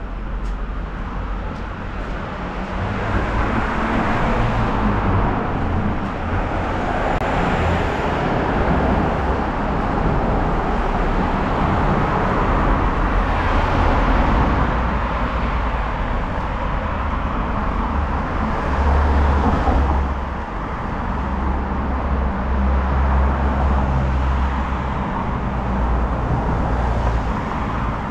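Busy city road traffic: a steady stream of cars passing close by, each swelling and fading over a continuous low engine rumble.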